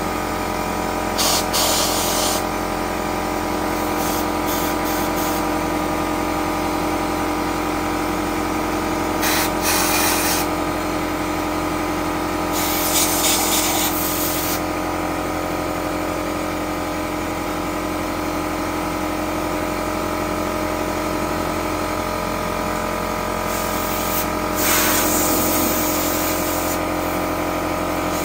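Compressed-air blow gun giving several short hissing blasts, blowing dust out of holes drilled in a concrete foundation to clean them for epoxied rebar. Under it a pancake air compressor runs with a steady drone.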